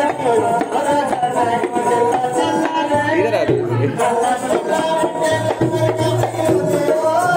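Rajasthani folk music: a voice singing a wavering melody over a steady drum beat.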